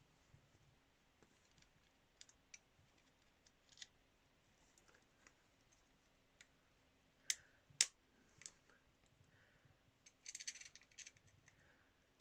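Faint small metallic clicks and taps as a valve collet is worked into the valve spring retainer, with two sharper clicks about seven seconds in and a brief rattle of clicks near the end.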